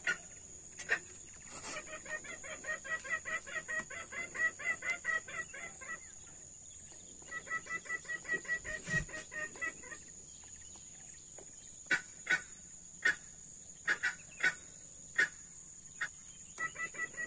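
Junglefowl call played from an MP3 player as a lure: runs of rapid, evenly spaced clucks, about four or five a second, lasting several seconds each with a pause between, then single clucks spaced about a second apart, and a short run again near the end.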